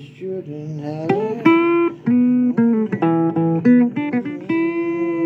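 Blues guitar playing an instrumental passage: held notes and chords, several of them sliding or bending in pitch.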